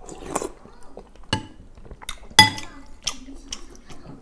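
Metal spoon clinking against a ceramic soup bowl while scooping wonton soup, with several light knocks and one sharp ringing clink about two and a half seconds in. Eating sounds as a wonton is taken off the spoon at the start.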